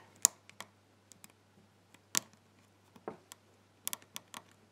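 Small, sharp metallic clicks of a thin hook pick working the pins of a pin-tumbler lock under very light tension from a flat tension bar, about half a dozen clicks at irregular intervals.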